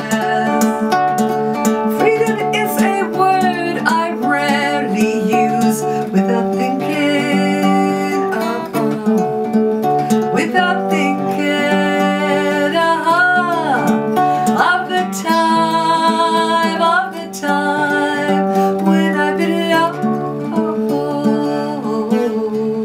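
A woman singing with her own nylon-string classical guitar, playing chords under a sung melody.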